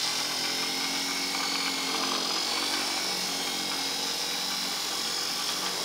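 Handheld electric polisher with a bonnet pad running steadily, buffing wax onto a surface: an even motor whir with a low hum.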